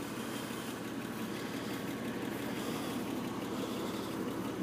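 2002 Porsche 911 Carrera's 3.6-litre flat-six engine idling steadily after a cold start, with no unusual noises.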